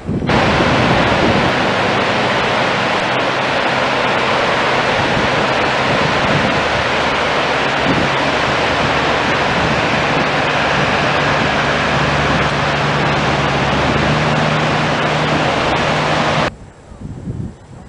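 Whitewater river rapids rushing over boulders: a loud, steady rush of water that starts abruptly and cuts off just as suddenly near the end.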